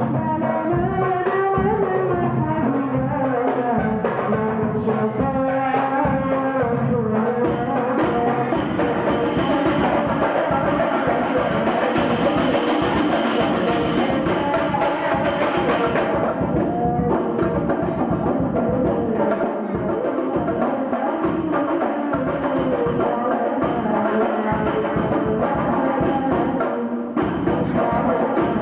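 A hadroh ensemble performing sholawat: rebana frame drums beat a steady, busy rhythm under voices singing the melody. A bright jingling of tambourine joins about a quarter of the way in.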